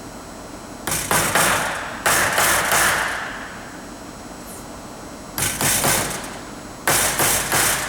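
A power tool run in four short bursts, each starting sharply and lasting under a second, fastening a piece of rubber conveyor belt down to a wooden board.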